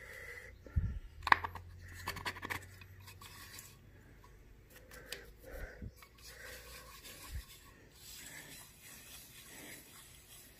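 Milling machine quill being cranked by hand through its fine feed with a newly fitted hand wheel: a few sharp metallic clicks about a second in, then faint rubbing and scraping from the feed mechanism as the quill moves.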